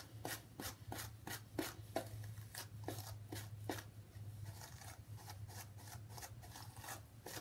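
Hands working oil into hair: faint, irregular rubbing and light tapping strokes, two or three a second, over a steady low hum.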